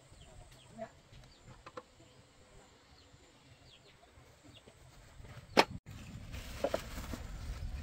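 Metal tool work on a small single-cylinder diesel engine: faint clinks under a quiet outdoor background with a few bird chirps. About five and a half seconds in comes one sharp, loud metal clank.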